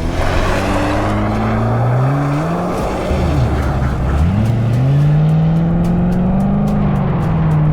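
Car engine accelerating, its pitch climbing in steps as if shifting up through gears, then dropping and climbing again before holding at a steady pitch.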